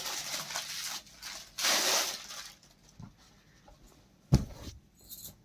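Cloth rustling and swishing as a folded suit fabric is unfolded, lifted and shaken out, in two spells over the first two and a half seconds. A single soft thump comes about four seconds in.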